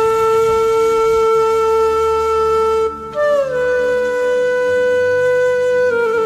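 Background music: a flute-like wind instrument holding long notes over a low drone. It breaks off briefly about three seconds in, then slides onto a new note, and steps down again near the end.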